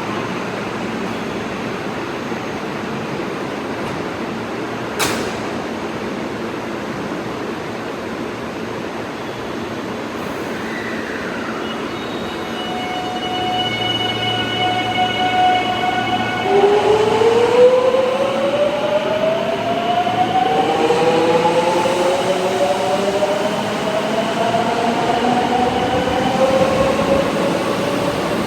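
JR West 207 series electric commuter train starting off: after a stretch of steady noise, its VVVF traction inverter sets in about twelve seconds in with several steady tones, then rising whines as the train gathers speed, the pitch pattern changing again about twenty seconds in. This set's inverter is one known for an unusual, off-normal sound. A single sharp click about five seconds in.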